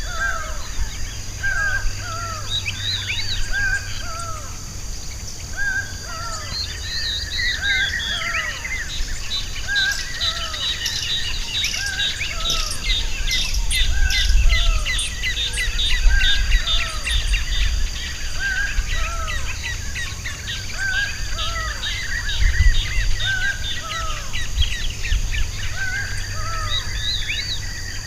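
Several birds singing together: one repeats a short arched call about once a second, and from about nine seconds a fast high trill runs until near the end. A steady high insect buzz and a low rumble sit underneath.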